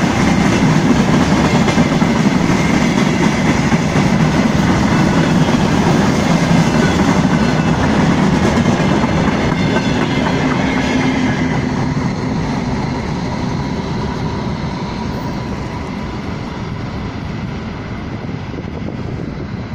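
Freight train of open-top gondola wagons rolling past, its wheels running on the rails in a steady loud noise. About eleven seconds in the last wagon passes, and the sound fades gradually as the train draws away.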